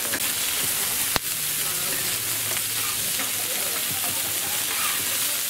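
Chicken thighs sizzling steadily on a hot flat-top griddle as the skin side sears. A single sharp click sounds about a second in.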